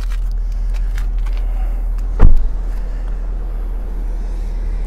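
A car door shutting once with a solid thump about two seconds in, over a steady low rumble.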